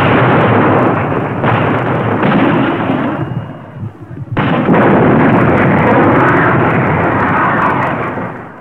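Artillery battery of howitzers firing in volleys. A sudden volley of blasts rolls on into a long rumble, and a second volley breaks out about four and a half seconds in, rumbling until it fades near the end.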